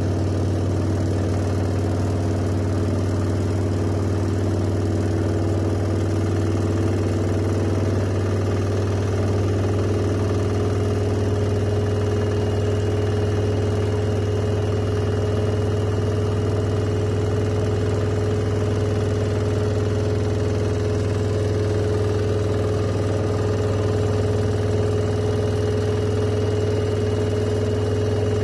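Washing machine running, a steady machine hum with a higher whine that climbs slightly in pitch several seconds in.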